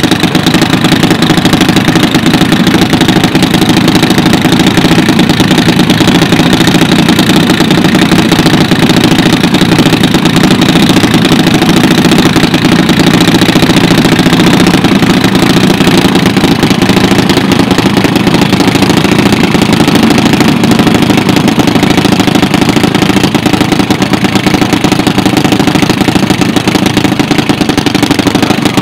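Junior dragster's single-cylinder engine running at a loud, steady idle.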